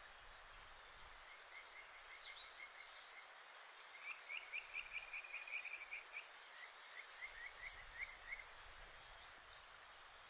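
Japanese stream frog (kajika frog, Buergeria buergeri) calling: a faint series of short high notes, then about four seconds in a louder run of quick repeated notes, followed by another run. Steady rush of stream water underneath.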